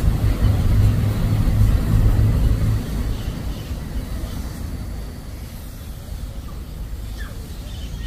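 Low, rumbling outdoor background noise, loud for the first three seconds or so, then dropping to a softer level.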